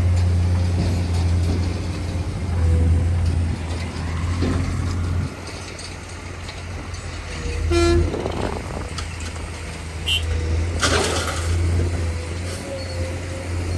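Diesel engines of heavy road-construction machinery running steadily, with a short horn toot about eight seconds in and a brief hiss a few seconds later.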